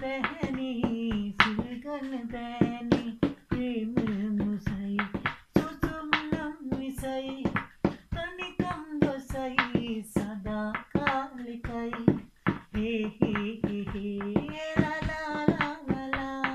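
A man singing a Sinhala love song unaccompanied, holding long notes, while tapping out a steady beat with his hands.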